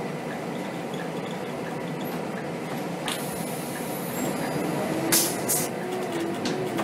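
Cab noise of a Scania K270 city bus under way: the diesel engine and road noise run steadily, and the engine note climbs in the second half as the bus accelerates. An air hiss comes in about three seconds in, and two short sharp hisses follow a couple of seconds later.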